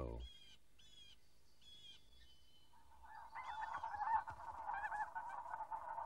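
A flock of snow geese calling: a dense chorus of honks comes in about three seconds in and grows louder. Before that, only a few faint high chirps are heard.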